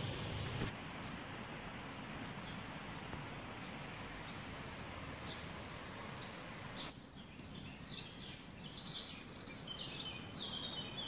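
Outdoor ambience of steady background noise, with small birds chirping in short high calls that start about halfway through and come thicker near the end. The background changes abruptly twice.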